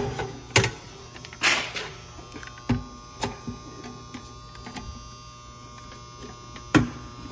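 Sheet-metal control panel cover of a powder coating oven being handled and closed: several sharp metal knocks and a brief scrape about a second and a half in, over a steady electrical hum.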